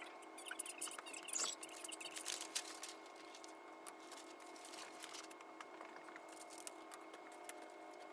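Sped-up room sound from a sewing-pattern class: scattered quick clicks and rustles over a steady hum.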